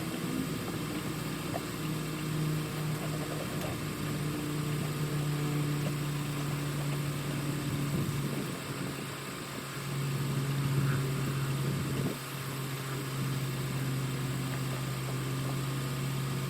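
An engine running steadily at idle, its low hum stepping slightly in pitch a few times, over a steady hiss.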